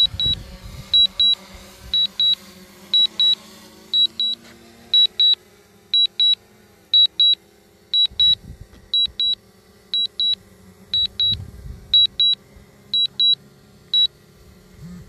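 High-pitched electronic double beeps, a pair about once a second, stopping near the end. Under them runs the steady hum of a descending drone's propellers, which dips in pitch about halfway through.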